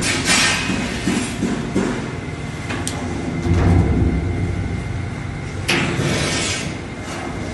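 Brake-lining riveting machine at work: sharp metallic knocks about a quarter second in and again near the end, with a low hum swelling in the middle.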